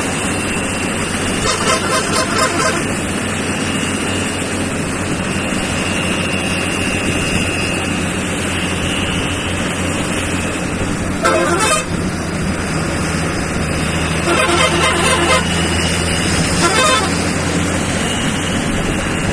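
Truck engine running steadily at road speed with tyre and road noise, broken by a few short horn blasts: one about two seconds in, one near the middle, and a longer spell of honking later on.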